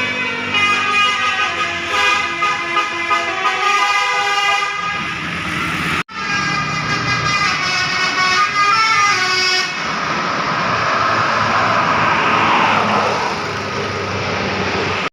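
Basuri multi-tone bus air horn playing a tune of stepping notes, with a sharp break about six seconds in before it carries on; from about ten seconds the sound turns noisier and less distinct.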